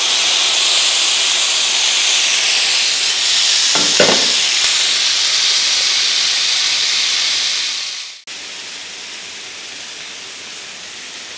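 Chicken kebabs and vegetables landing on a hot cast-iron sizzler plate, giving a loud steaming hiss, with a brief knock about four seconds in. About eight seconds in the hiss drops suddenly to a quieter sizzle.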